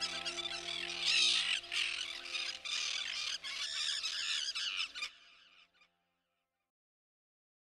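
A flock of birds calling over a soft, sustained musical chord, both fading out about five seconds in.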